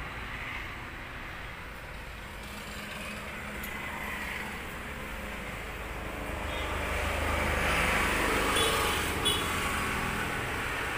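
Road traffic noise, with a vehicle passing that grows louder over the second half and eases off near the end.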